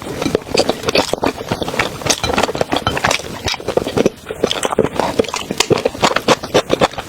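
Close-miked eating sounds: chewing seafood, with a dense run of quick wet clicks and crackles.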